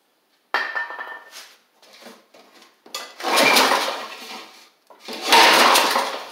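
Recoil starter rope on a Tecumseh push-mower engine pulled hard twice, each pull cranking the engine over for about two seconds without it catching. A shorter noise comes first, about half a second in. The engine is being tried on carb spray and wants to fire but won't start.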